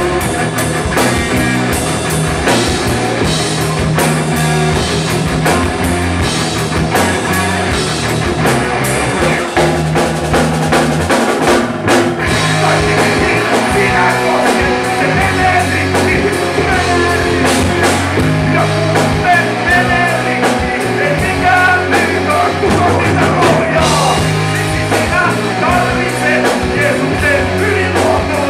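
Live rock band playing: electric guitars and a drum kit, with a man singing into the microphone over the band in the second half.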